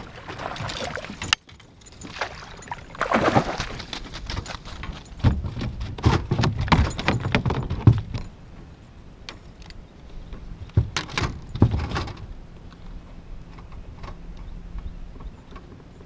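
A hooked bass splashing and thrashing at the surface beside a fishing kayak and being netted aboard, with irregular rattling and knocking of the landing net, rod and gear against the plastic kayak. The commotion dies down about twelve seconds in.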